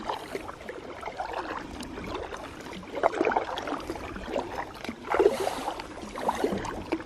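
Kayak paddle strokes in lake water: irregular swishes and splashes as the blades dip and pull, with water trickling off the paddle.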